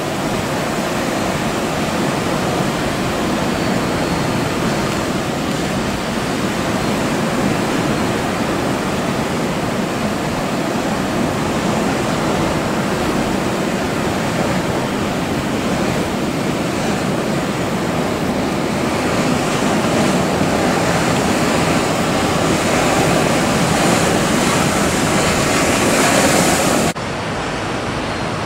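Rough sea and breaking surf with wind on the microphone: a steady, full rush of water noise. Near the end it suddenly drops in level and loses its hiss.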